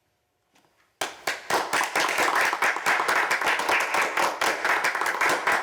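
A group of people clapping in applause, starting suddenly about a second in after near silence and keeping up a dense, steady patter of claps.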